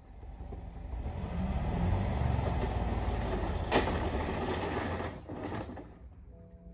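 BMW 1 Series hatchback's engine running as the car pushes through deep ford water, with the water churning and hissing; it swells over a couple of seconds and fades again. There is one sharp click about four seconds in.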